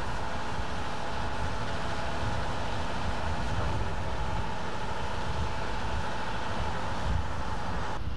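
DR class 41 steam locomotive standing at the coaling crane: a steady hiss and rumble with a faint even tone.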